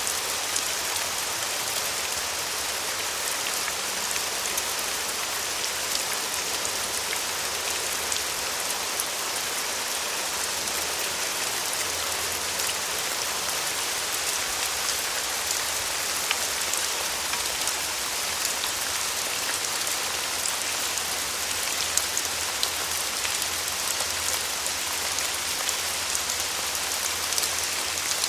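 Steady rain falling on a surface, a constant hiss with many small drop ticks throughout.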